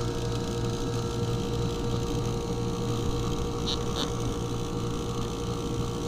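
Geothermal heat pump running with its access panel open: a steady compressor hum, with two brief high ticks about three and a half seconds in. The unit is working normally.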